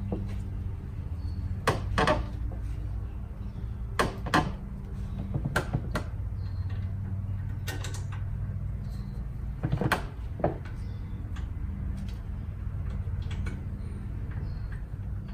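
Irregular metal clinks and knocks as a 2008 Cadillac Escalade's rear brake caliper is fitted back over new pads and lined up on its bracket, over a steady low hum.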